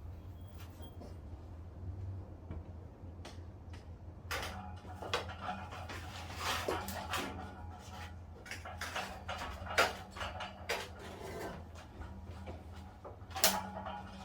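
Irregular knocks, rattles and scrapes of a water heater being shifted into position on a hand truck, with sharper knocks about ten seconds in and again near the end, over a steady low hum.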